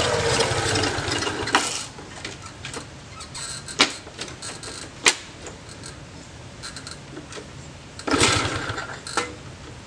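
Kick-starting a classic Cub-style step-through motorcycle: about eight seconds in, the engine turns over in a short burst of rapid pulses for about a second and dies away without running. Before that, engine noise fades out in the first two seconds, and a few sharp clicks and knocks follow.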